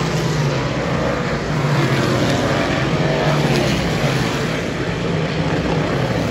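Several dirt-track modified race cars' V8 engines running together as the cars circle the clay oval, a loud, steady engine noise throughout.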